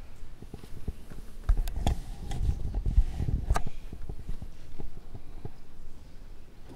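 Scattered clicks, knocks and low thumps with rustling, the loudest cluster between about one and a half and four seconds in; no music is playing.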